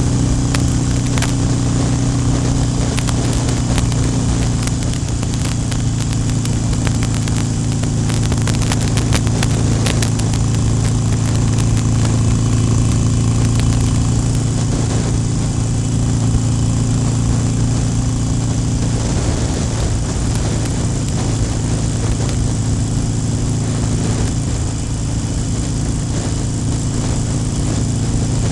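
Harley-Davidson Iron 883's 883 cc air-cooled V-twin engine running at a steady speed, its pitch holding nearly level throughout.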